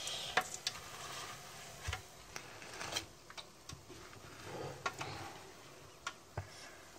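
Scattered light clicks and taps of a plastic spatula and plate as a fried chicken doughnut is lifted from the fryer oil and set on a paper towel to drain. There is a faint sizzle of hot oil in the first second and a soft paper rustle near the end.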